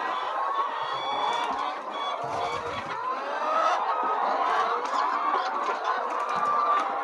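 A flock of laying hens clucking continuously, many birds calling over one another.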